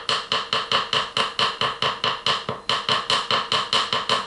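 Wooden spoon tapped rapidly and evenly against a crockpot, about six ringing knocks a second.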